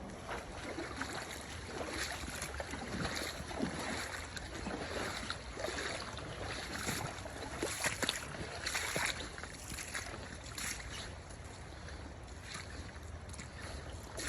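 Running river water with irregular splashing.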